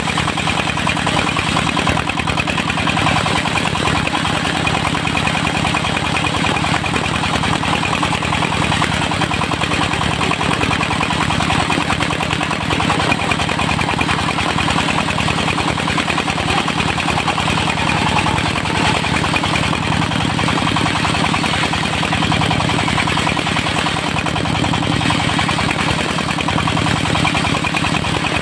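Engine of a portable circular sawmill running steadily without a break.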